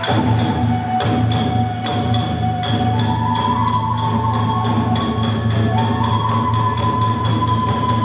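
Kagura accompaniment music: a bamboo transverse flute holds long notes that step up and down in pitch, over steady metallic strikes of small hand cymbals, about two to three a second.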